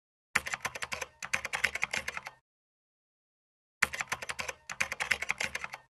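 Computer keyboard typing sound effect: two runs of rapid key clicks, each about two seconds long, separated by silence, marking on-screen text being typed out.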